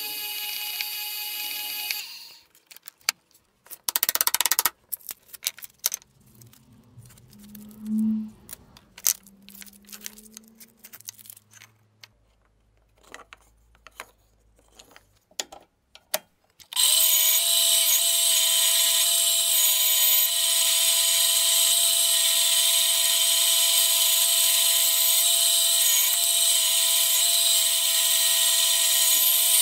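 A drill press runs briefly while drilling through stacked wooden handle slabs, then stops. After a quieter stretch of clicks, knocks and handling noise with one short loud burst, a bandsaw starts abruptly and runs steadily, cutting a cork-faced handle blank.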